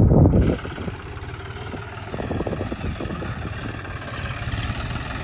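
John Deere 5105 tractor's three-cylinder diesel engine running at low speed under load, louder for the first half second, then quieter and steady.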